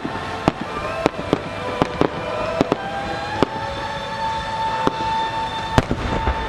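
Fireworks: sharp pops and reports as a large aerial shell climbs, then the shell bursts with the loudest bang about six seconds in. A steady high tone rises slightly and then holds from about three seconds in.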